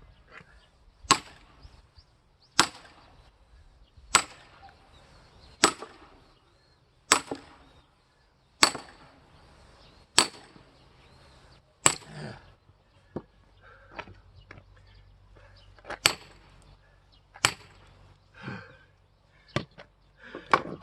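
A large log being split for firewood by hand: sharp, heavy chopping blows into the wood about every second and a half, then fewer and less regular after about twelve seconds.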